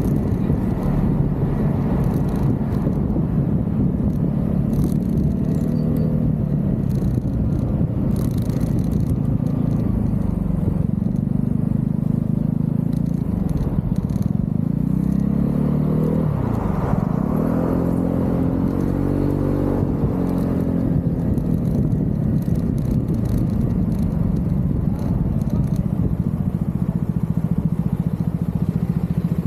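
Vespa GTV 300 scooter's single-cylinder engine running under way over a steady low rush, its pitch drifting up and down with the throttle. It dips sharply and climbs again about halfway through.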